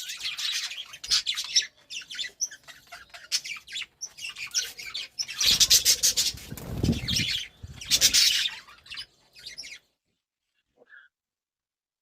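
Budgerigars chattering and warbling in a rapid, high-pitched run, with a lower rustle or flutter mixed in about halfway through; the chatter stops near the end.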